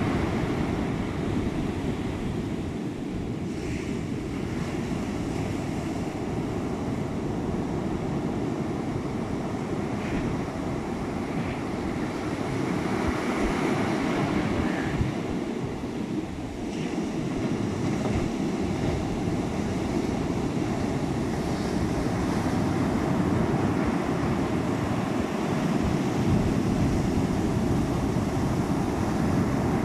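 Rough storm surf breaking and washing up a sand-and-pebble beach with a hurricane approaching: a continuous rushing that swells and ebbs, dipping briefly about halfway through and growing a little louder near the end. Wind gusts on the microphone.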